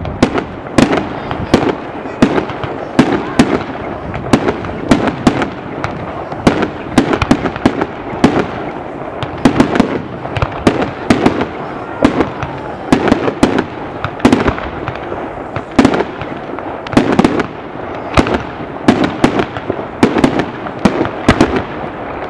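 Fireworks display: aerial shells bursting one after another, a steady run of sharp bangs about two a second without a break.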